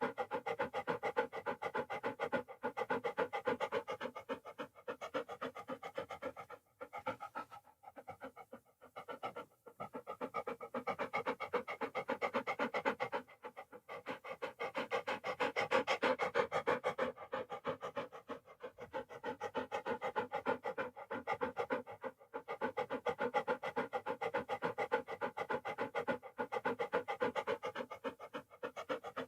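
A dog panting fast and steadily in quick, short breaths, with a few brief pauses between runs of panting.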